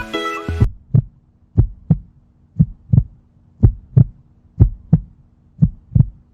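Music cuts off shortly after the start, then a heartbeat sound effect follows: paired low thumps, lub-dub, about once a second over a faint steady hum.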